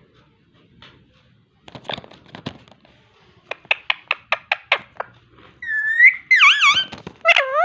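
Pet parrot calling: a quick run of about nine short, sharp chirps, then a rising whistle, a few wavering whistles and a loud call near the end.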